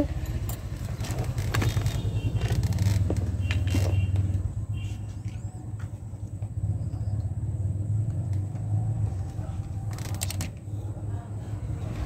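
A steady low rumble of background noise with scattered light clicks and taps, including a short cluster of sharper clicks about ten seconds in.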